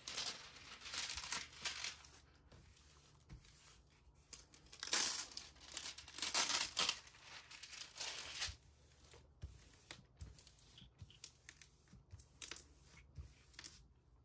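Clear plastic cover film on a diamond painting canvas crinkling as it is lifted and smoothed out, in several rustling bursts. Scattered small taps and clicks follow in the second half.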